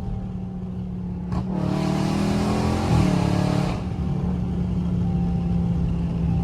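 Dodge Charger Scat Pack's 392 Hemi V8 exhaust with catless mid pipes, droning steadily at cruise. About a second and a half in, the throttle opens: the revs climb with a louder, raspier exhaust for about two seconds, then drop back to the steady drone.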